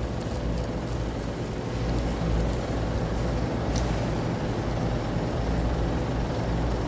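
Steady low mechanical rumble with a faint hum running through it, and one faint click about four seconds in.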